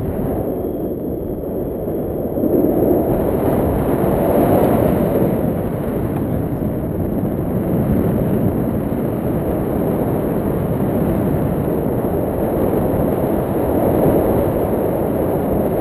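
Airflow buffeting the microphone of an action camera held out on a pole during a tandem paraglider flight: a steady, loud, low rushing rumble that swells slightly about two and a half seconds in.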